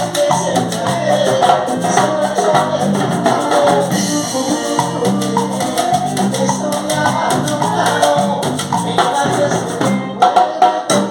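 Loud salsa-style Latin music with singing and hand percussion; about ten seconds in, a short break of sharp drum hits.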